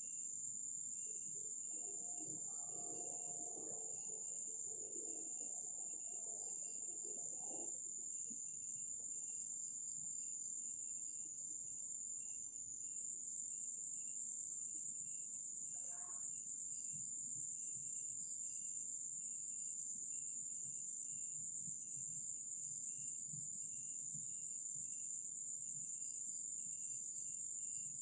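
Night insects, crickets, chirring continuously as a steady high-pitched trill, with a second, softer chirp pulsing a few times a second beneath it. A faint low murmur sounds for a few seconds near the start, and one short faint call comes about halfway through.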